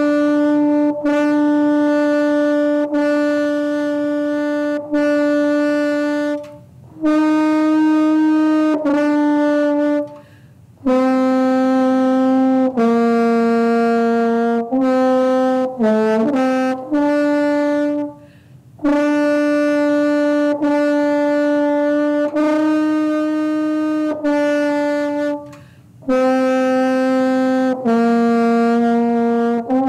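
French horn playing a slow melody of long held notes. The phrases are broken by four short pauses for breath.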